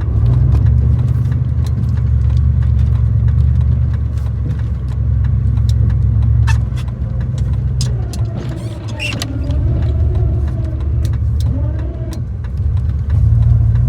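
Gas 3/4-ton pickup truck running while plowing snow: a steady low rumble with scattered clicks. The rumble drops off about seven seconds in, with a fainter wavering tone over it, and comes back up strongly near the end.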